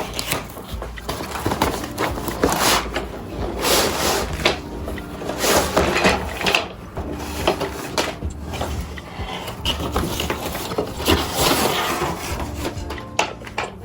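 Irregular clatter, light knocks and rustling of household objects being handled.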